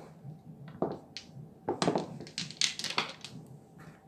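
Mahjong-style game tiles clacking against each other and the table as the played tiles are gathered up, in several short clattering runs: about a second in, around two seconds, and near three seconds.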